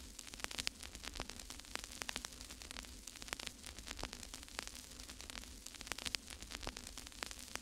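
Faint crackling static: a steady hiss and low electrical hum, broken by many irregular sharp clicks.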